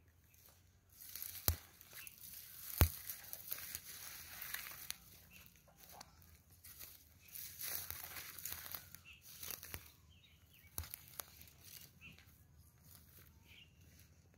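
Crunching and rustling of footsteps through dry grass and stubble, with two sharp knocks about one and a half and three seconds in and scattered smaller ticks.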